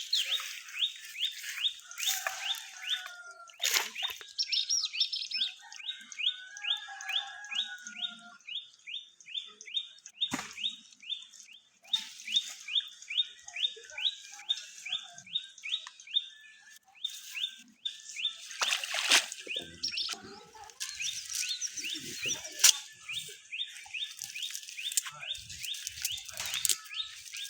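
Bird chirping in a fast, even series of short falling notes, about three a second, with a few brief knocks along the way.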